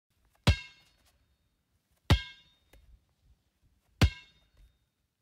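Three sharp metallic clangs, roughly one and a half to two seconds apart, each ringing briefly before dying away, with a few fainter knocks between them.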